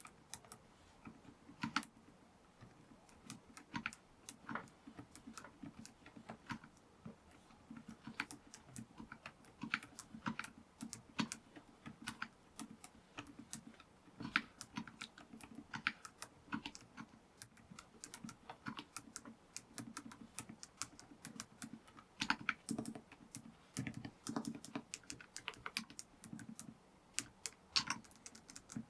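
Type test on an Angry Miao Cyberboard R2.5 custom mechanical keyboard with TTC Frozen Silent V2 silent switches and Cerakey ceramic keycaps: a continuous run of soft, irregular keystrokes, busier and denser for a few seconds near the end.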